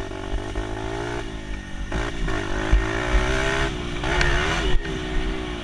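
Dirt bike engine running as it is ridden, its pitch rising and dipping with the throttle, with wind rumble on the microphone.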